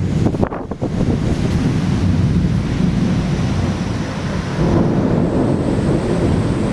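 Storm wind buffeting the microphone in a torrential cloudburst, a loud, steady low rush of wind and heavy rain with gusts in the first second.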